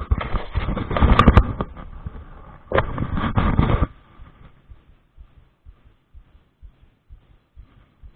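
Wind buffeting the microphone in two strong gusts over the first four seconds, then dying down to faint scattered low thumps.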